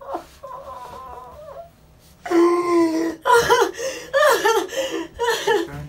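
A woman crying in grief: a held moan, a short pause, then a long wailing cry that breaks into sobs.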